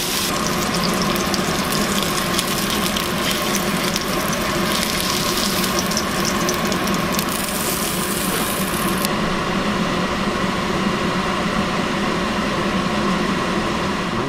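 Marinated monkeyface prickleback fillets sizzling in a nonstick frying pan as their sauce cooks down to a caramelized, slightly burnt glaze, with a steady hum underneath. The sizzle's high hiss drops off about nine seconds in.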